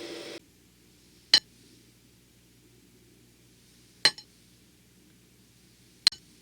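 Ukulele music ends about half a second in, followed by three short, sharp clicks a couple of seconds apart, like hard objects tapped or set down.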